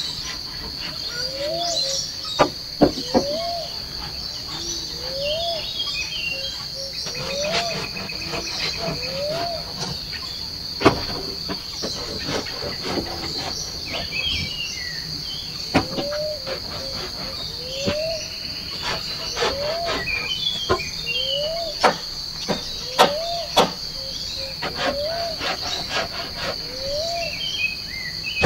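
Forest insects keep up one steady high-pitched trill throughout, while a short, low, rising call repeats every second or two and a few small chirps sound higher up. Scattered sharp clicks and knocks come through at irregular moments.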